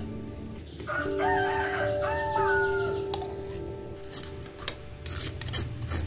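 A rooster crows once, starting about a second in and lasting about two seconds, its pitch rising and then falling, over soft background music. Near the end come a few sharp clicks of a metal mesh strainer knocking against the rim of a glass jar.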